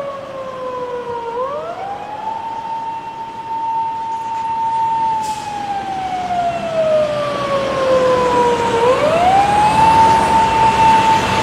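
Japanese emergency-vehicle siren sounding its slow wail. The pitch rises quickly, holds high for a few seconds, then slides slowly down before rising again, twice in all. It grows steadily louder.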